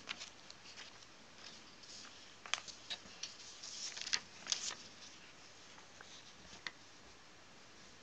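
A sheet of drawing paper being handled and shifted on a drawing board: light rustles and small taps, busiest in the middle, with a couple of single taps later.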